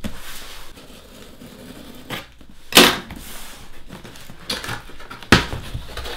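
Packing tape being slit and torn on a cardboard shipping box, with cardboard rustling and scraping. A sharp knock comes about three seconds in, and a sharp crack of tape and cardboard flaps being pulled open comes near the end.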